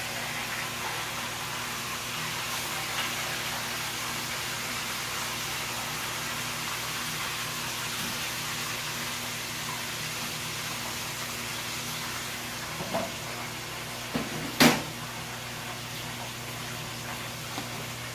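Pork knuckle deep-frying in hot oil in a pot, a steady sizzle. A few small clicks and then one sharp crack come about three-quarters of the way through, as the hot oil pops.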